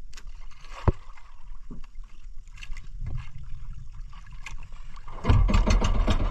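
Outrigger banca under way at sea, water splashing and slapping against the hull and outrigger over a low rumble. It gets louder and busier about five seconds in.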